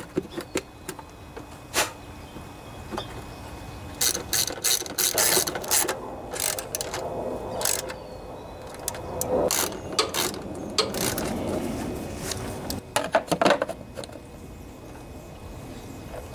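A hand socket ratchet clicking in several runs as bolts are driven to fasten the plastic belt covers onto a riding mower's cutting deck.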